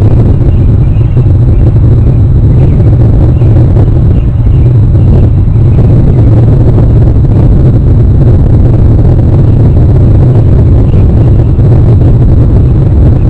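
A steady, loud low rumble.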